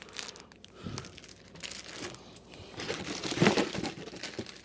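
Packaging crinkling and rustling as a boxed flag is handled and unpacked, in irregular crackles that are loudest about three and a half seconds in.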